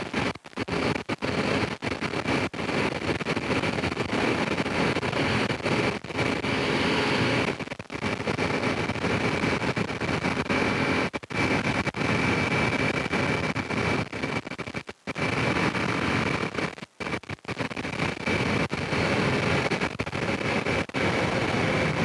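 Honda Rincon 650 quad's single-cylinder engine running as it rides along, under a steady rush of wind noise. The sound drops out briefly several times, around half a second in, near eight seconds, at fifteen seconds and at seventeen seconds.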